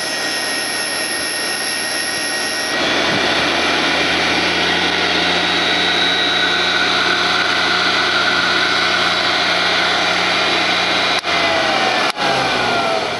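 Black & Decker valve refacer's electric motors running steadily with a hum and whine; for the first few seconds a higher whine rides over it as the grinding wheel cuts a valve face. Near the end the motor switches are flipped and a motor winds down, its whine falling in pitch.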